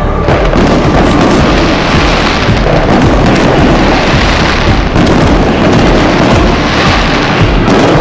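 Aerial fireworks shells bursting in close succession, a continuous barrage of booms and crackle with a few sharper bangs standing out.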